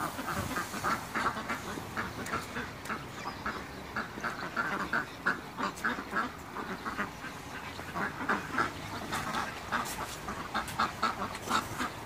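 A flock of mallard ducks quacking: many short quacks in quick, irregular succession, often overlapping.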